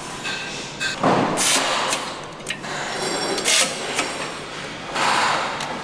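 Engine assembly hall noise: a steady machinery background broken by three loud bursts of hiss, about a second in, around three and a half seconds and near the end.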